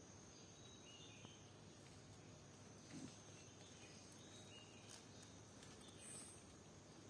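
Near silence: faint forest ambience with a thin steady high tone and a few soft, short high chirps.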